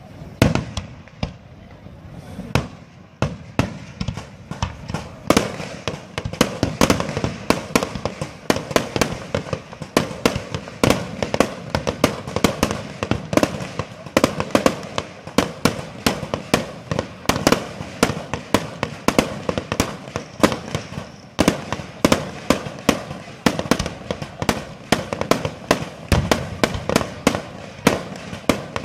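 Fireworks display: aerial shells bursting in a dense, near-continuous barrage, several bangs a second, thickening after the first couple of seconds.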